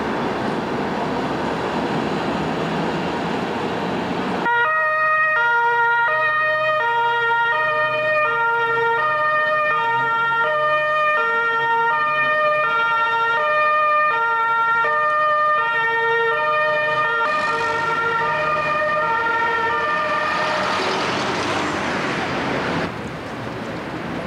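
Road traffic noise, then about four seconds in an emergency vehicle's two-tone siren cuts in, alternating steadily between a high and a low note for about twelve seconds before sinking back into the traffic noise.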